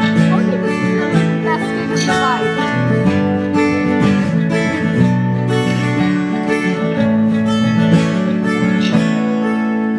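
Acoustic guitar and mandola playing a song's instrumental intro live, strummed and picked together.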